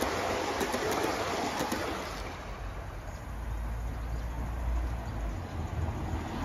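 Model railway coaches rumbling and clicking over the track as they pass close by. About two seconds in the sound drops to a quieter low rumble as the train runs further off.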